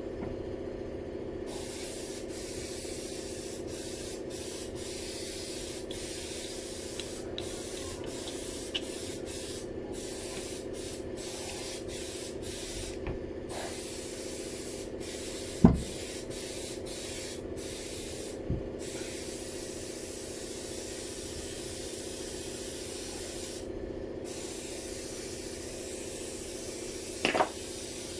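Hissing spray in short, repeated blasts that stop and start again, used to clean pump parts, over a steady machine hum. A few sharp knocks of metal parts sound along the way, the loudest about halfway through.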